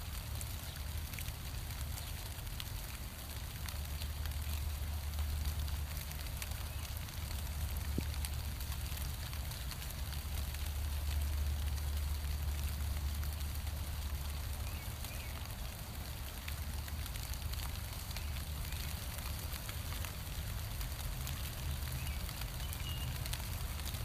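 Steady rain falling on leaves and the ground, an even hiss with scattered fine drip ticks, over a steady low rumble.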